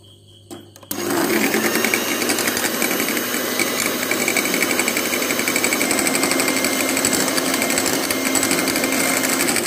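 Electric hand mixer switching on about a second in, its motor running steadily at a constant pitch as the twin wire beaters whip an egg mixture in a glass bowl.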